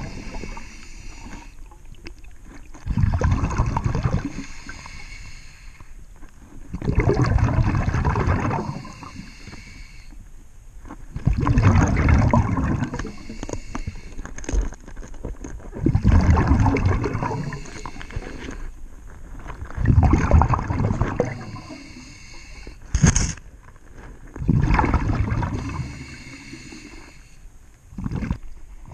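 A scuba diver breathing through a regulator underwater. Each exhalation sends out a loud, bubbling burst of about one to two seconds, roughly every four seconds, with quieter breathing between. There is a single sharp click about three-quarters of the way through.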